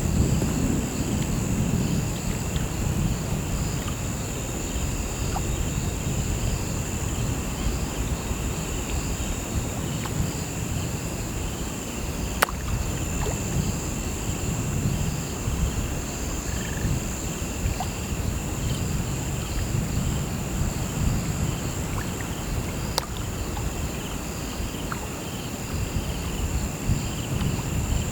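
Crickets chirping over a river's steady flow: one high, unbroken trill layered with a slower, rhythmic chirping, above a low rush of moving water. Two faint sharp ticks, about 12 and 23 seconds in.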